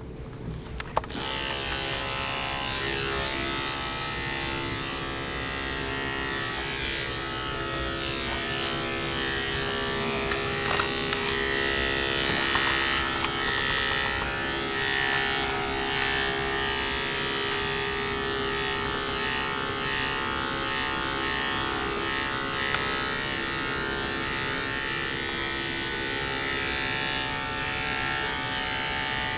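Electric dog grooming clippers switched on about a second in, then running steadily as they cut through the coat.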